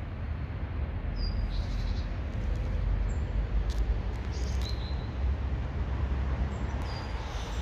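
Outdoor urban ambience: a steady low rumble with a few short, high bird chirps scattered through it.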